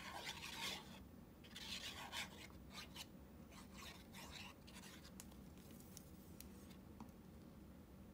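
Fine applicator tip of an Art Glitter glue bottle dragged across the back of a cardstock cutout in three short strokes in the first half, then faint handling of the paper pieces with a few light ticks as the layer is set down.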